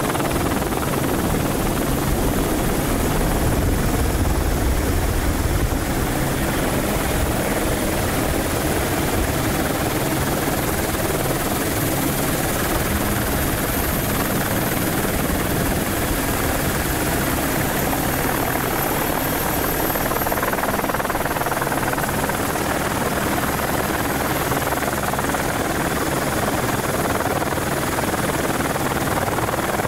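Helicopter running steadily overhead: a dense, even rush of rotor and engine noise with a low hum and a faint high whine, unchanging throughout.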